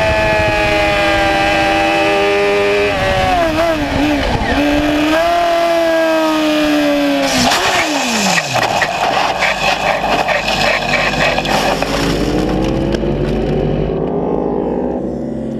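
Sport motorcycle engine running hard with gear changes under braking, then about seven seconds in the bike goes down in a crash: a rough scraping slide of the fallen bike across asphalt and gravel for several seconds while its engine note falls away. Near the end, other motorcycle engines rise in pitch.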